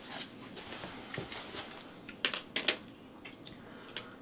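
Faint clicks and taps in a quiet room, with a short cluster of them about two seconds in.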